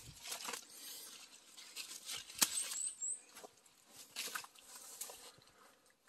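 Persimmon tree branches and leaves rustling as the fruit is handled and picked, with scattered sharp clicks and snaps. A few short high chirps come a little before the middle.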